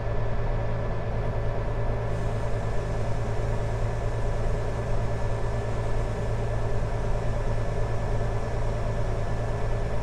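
Farm tractor's diesel engine running steadily, a constant low hum heard from inside the closed cab.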